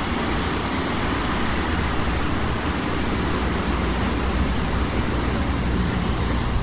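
Steady, even roar of heavy winter surf breaking along a rocky shore.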